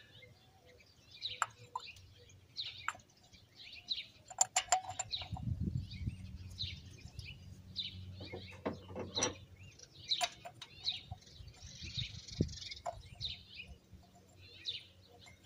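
Birds chirping over and over in the background. Clusters of sharp metallic clicks and clinks come about four to five seconds in and again near nine seconds, from a socket ratchet and the bolts of a thermostat housing being handled.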